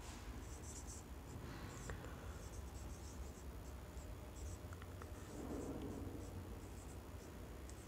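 Marker writing on a whiteboard: faint, intermittent short squeaks and scratches of the tip on the board.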